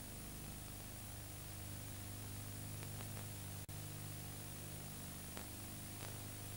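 Steady hiss and low electrical hum of a silent broadcast on an old off-air tape recording, with a few faint clicks and one brief dropout about three and a half seconds in.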